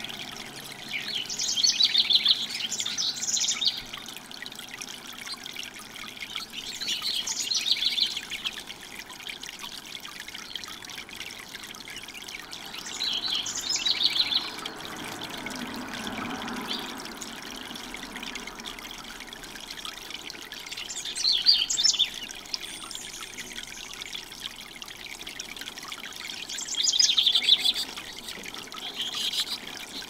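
Tiered fountain birdbath trickling and splashing steadily. Five bursts of high warbling bird song break in, each a second or two long, about every five or six seconds.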